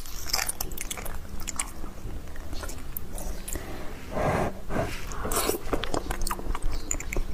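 Close-miked eating of roasted beef bone marrow: wet chewing and smacking with many small clicks, and a louder, fuller mouth sound about four seconds in as a spoonful of marrow goes into the mouth.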